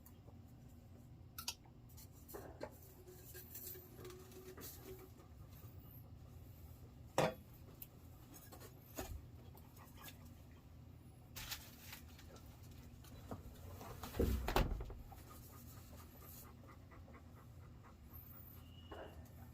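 Scattered light clicks, knocks and scraping from hands working on plumbing parts and tools, with a sharp knock about seven seconds in and a heavier thump about fourteen seconds in.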